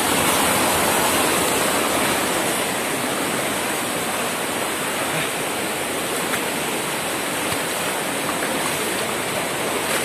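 Waterfall's falling water rushing as a steady, loud roar of noise.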